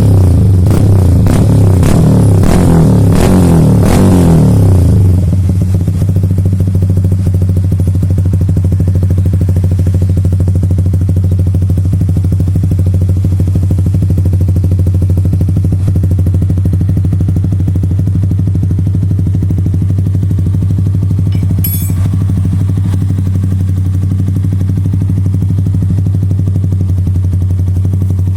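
Single motorcycle engine running through an aftermarket racing exhaust with a CNC-machined, carbon-coated silencer, with a deep, steady low note. It is louder and busier for the first five seconds, then settles into an even idle, with a brief click a little after twenty seconds.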